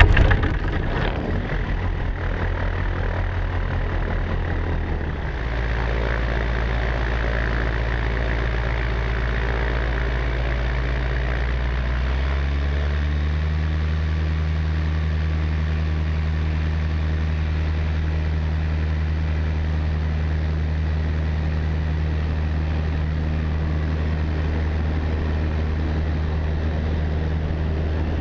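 Tecnam P92 ultralight's piston engine and propeller running steadily, the engine note stepping up in pitch about five seconds in and again about twelve seconds in.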